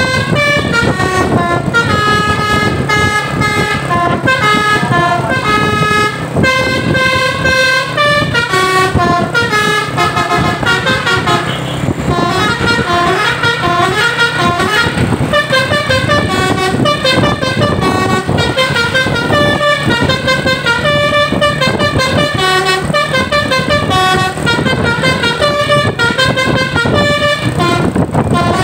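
A bus's telolet basuri multi-tone air horn playing a fast tune, its notes stepping up and down several times a second, with a sliding sweep in pitch about twelve seconds in. A steady low hum runs underneath.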